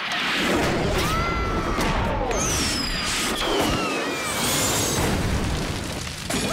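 Fireworks going off: several whistling rockets whose whistles glide up and down in pitch, over steady crackling and bangs.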